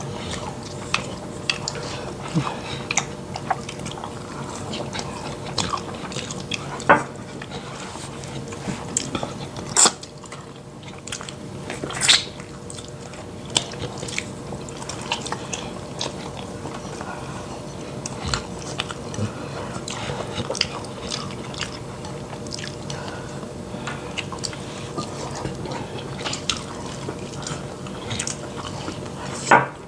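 Close-up eating sounds of two people eating fufu with pepper soup and meat: wet chewing, biting and slurping, with many short, irregular clicks and smacks.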